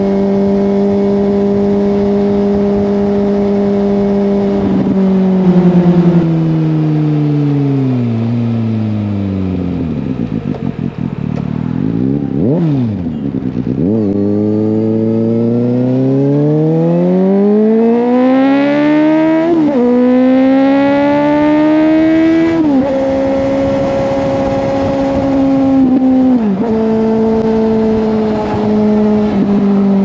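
Suzuki GSX-S750's inline-four engine through an Akrapovic slip-on exhaust while riding: it holds a steady cruise, the revs fall away as the bike slows, and a quick rev comes about halfway through. It then pulls hard, rising through two upshifts, each a sudden drop in pitch, before settling back to a steady cruise.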